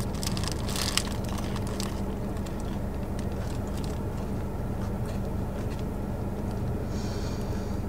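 A crunchy bite into a fried chicken sandwich with its paper wrapper rustling, crackling for the first two seconds. Under it runs a steady low hum from the car she sits in, heard from inside the cabin.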